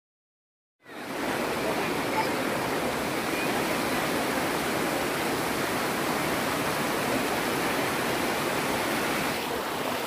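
Steady rush of a rocky stream's water, starting about a second in after a moment of dead silence.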